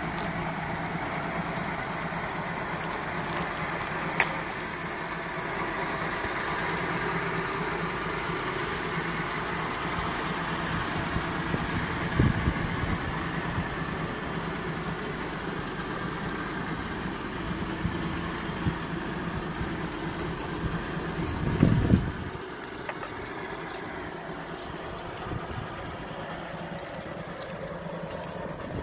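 A 1920s Rolls-Royce 20 HP's six-cylinder engine idling steadily. A few short knocks come through, the loudest about three quarters of the way in, after which the sound is a little quieter.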